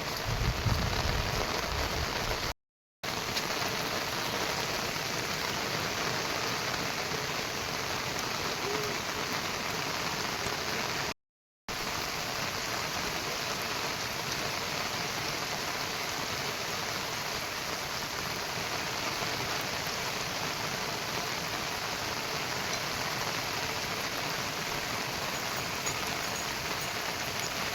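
Heavy monsoon rain falling steadily, an even hiss of rain on surfaces. The sound drops out completely twice for a moment at cuts.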